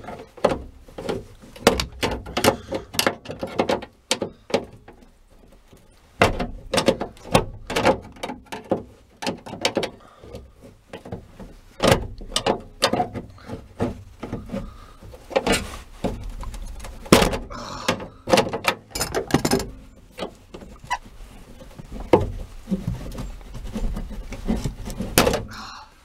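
Two screwdrivers prying and knocking at the seized rear liftgate latch mechanism inside a 2004 Toyota 4Runner's back door: an irregular string of metal clicks and knocks, with a pause about four seconds in. The latch stays seized and does not move.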